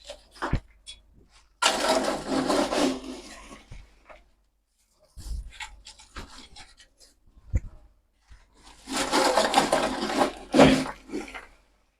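Blended charcoal being spread over poultry litter: two long rushing, scraping passages, one a little over a second and one about two seconds, with a few short knocks between them.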